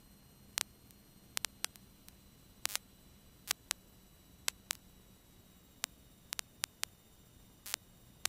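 Quiet aircraft intercom or radio audio feed with irregular sharp static clicks, about fifteen scattered through, over a faint low hum that fades about halfway.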